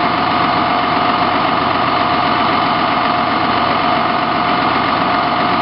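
Parked fire engine's diesel engine running steadily at a constant speed, with a steady whine over it.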